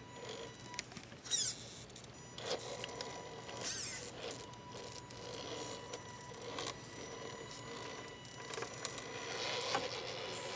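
Electric radio-controlled scale rock crawler's motor and drivetrain whining as it creeps over rock onto wooden planks. A short whine rises and falls twice in the first four seconds. The tyres knock and scrape a few times on the rock and wood.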